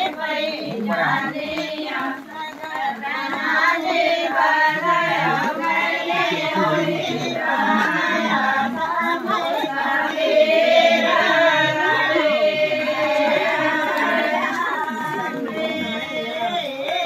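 A group of women singing a Himachali folk song together in chorus, holding one long note about two-thirds of the way through.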